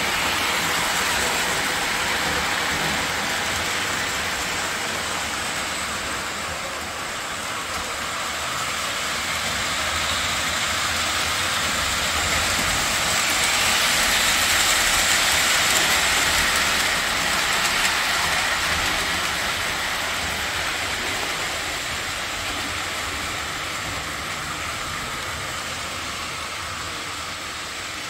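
Lionel O-27 model steam locomotive and train running on three-rail tinplate track, a steady rolling whir of motor and wheels. It grows louder as the train passes close about halfway through, then fades as it moves away.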